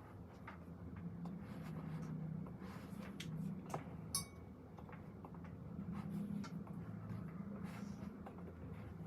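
Pen scratching on paper with scattered light clicks over a low room hum, and one short clink about four seconds in.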